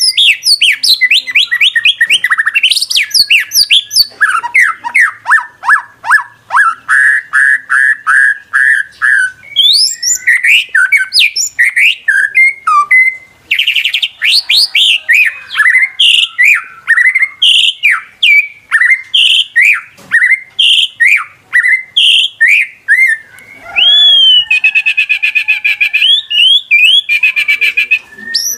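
White-rumped shama (murai batu) singing loudly and without pause: fast runs of repeated notes, trills and whistled slurs, switching to a new phrase every few seconds, with a buzzy chattering trill near the end. It is the kind of lure song used to get a caged shama to sing.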